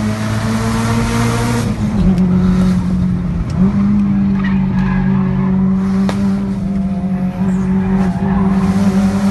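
Turbocharged four-cylinder car engine pulling at high, steady revs on a mountain road run. The revs drop as the throttle lifts about two seconds in and climb back about a second and a half later, with a couple of sharp exhaust pops.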